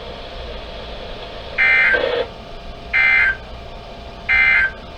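NOAA Weather Radio SAME end-of-message data bursts: three short digital bursts about 1.3 s apart, the code that marks the end of a severe thunderstorm warning.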